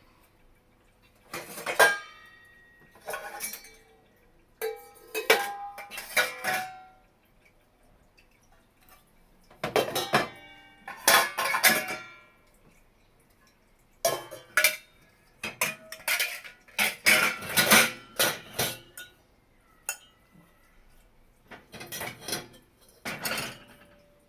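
Washed dishes and metal utensils clinking and clattering as they are handled in an open dishwasher's racks. The clatters come in repeated separate bursts with quiet gaps, some ringing briefly.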